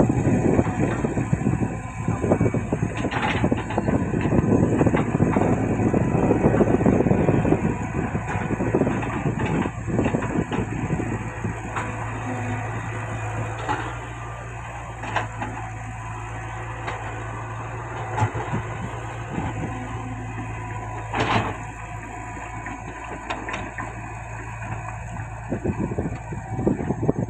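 Heavy diesel earth-moving machinery at work. A loud, dense rumble and rattle for the first eight seconds or so eases into a steadier low engine drone, with scattered clanks and knocks.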